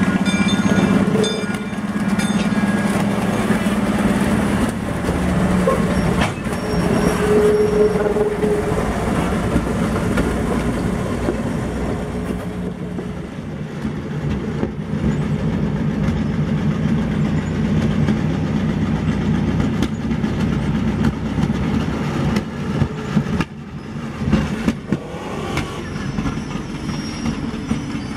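Small 1943 Plymouth switcher locomotive's engine running steadily as it moves slowly along the track.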